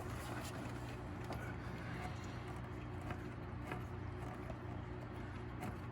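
A steady low mechanical hum, with a few light, scattered clicks and taps of hand tools on the engine as a bolt is worked loose.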